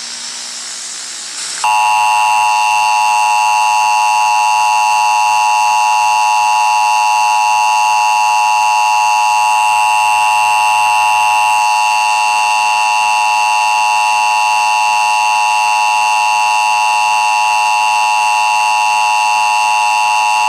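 Emergency Broadcast System attention signal: a steady, loud two-tone alarm that comes on sharply about two seconds in and holds unbroken. A short stretch of hiss comes before it.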